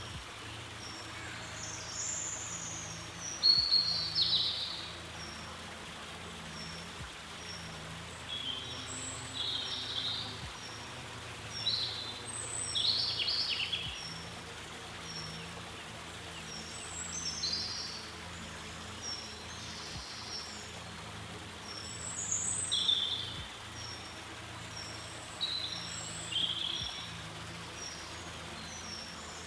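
Wild songbirds singing: short, varied, high phrases every few seconds over a thin high note repeated about once a second, against a steady outdoor hiss.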